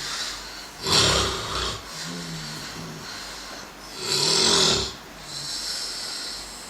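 A sleeping person snoring heavily: two loud snores, about a second in and about four seconds in, with quieter breathing between them.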